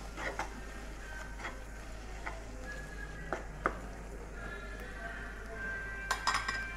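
Spatula stirring fried onions in a stone-coated nonstick pan, giving a few short scrapes and taps against the pan, with a small cluster of them near the end.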